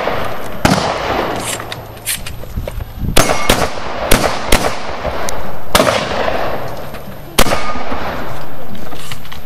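A string of shotgun shots during a practical shooting stage, about six loud blasts spaced from half a second to about a second and a half apart. Each is followed by a long echoing tail, and there are fainter sharp cracks between them.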